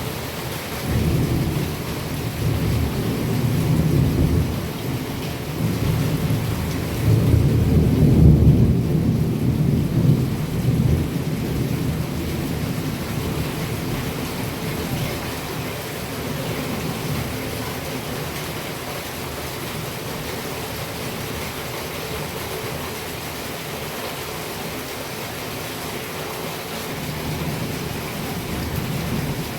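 Heavy rain falling steadily, with rolling thunder rumbling over it. The loudest peal comes about seven to ten seconds in, and a fainter rumble comes near the end.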